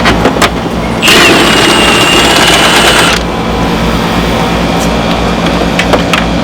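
A power wrench runs for about two seconds, starting about a second in, with a high whine, as it backs off the bumper's mounting nuts. A steady low hum and scattered clicks and knocks of tools on metal sit underneath.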